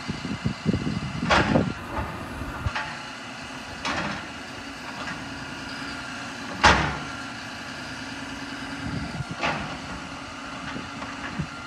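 Heavy equipment engine running steadily, with sharp knocks or bangs about every two and a half seconds; the loudest comes near the middle.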